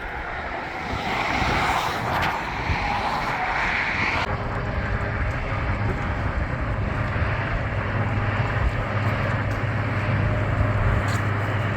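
Steady rush and rumble of highway traffic at about 70 mph passing close by. A higher hiss over the first four seconds cuts off suddenly, and the low, even road drone carries on.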